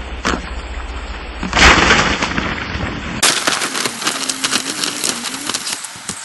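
Rushing, crackling outdoor noise of wind on the microphone and water spattering on a plastic backyard waterslide sheet. It is loudest in a burst about a second and a half in and changes abruptly to denser crackling about three seconds in.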